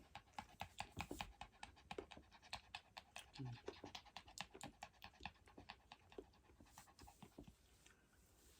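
Mother Yorkshire terrier panting rapidly and faintly during whelping, fading near the end.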